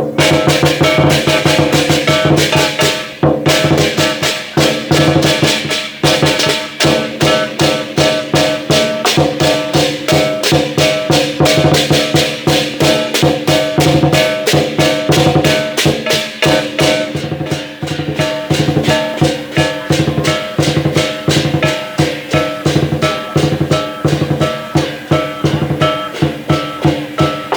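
Lion dance percussion ensemble playing: a Chinese drum beaten in a rapid, steady rhythm with clashing cymbals and ringing gongs.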